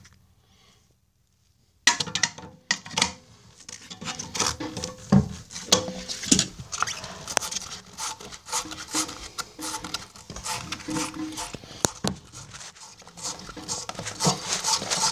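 Pliers working the fill-valve lock nut on the underside of a toilet tank: a dense run of irregular clicks, knocks and scrapes that starts about two seconds in.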